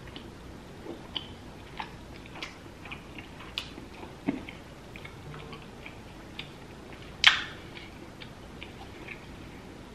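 Close-up mouth sounds of chewing king crab meat in cheese sauce: scattered soft wet clicks and smacks, with one much louder sharp click a little past seven seconds in.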